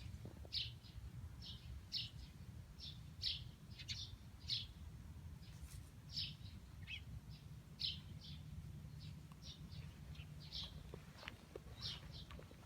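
Small birds chirping: short, high chirps repeating irregularly, about one or two a second, over a steady low hum.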